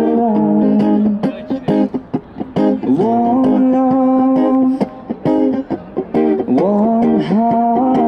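A singer's voice with a strummed acoustic guitar. The sung phrases are held and gliding, each about two seconds long, and in the gaps between them only the guitar strumming is heard.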